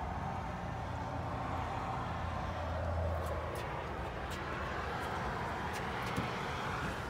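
Steady outdoor traffic rumble and background noise, with a few faint clicks from handling near the car.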